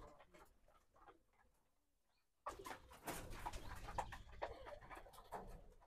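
Pigeons cooing faintly in a coop. About halfway through, a stretch of rustling and knocking starts suddenly, then fades away near the end.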